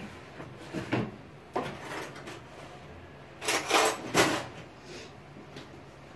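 A series of kitchen knocks and clatters from utensils and containers being handled, the loudest two about three and a half and four seconds in.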